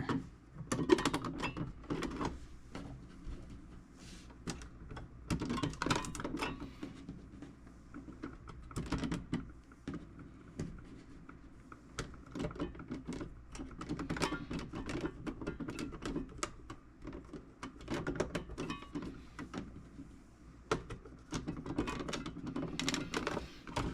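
Irregular clicking, tapping and rattling of toolbox parts being handled and fitted by hand during a repair, over a low steady hum.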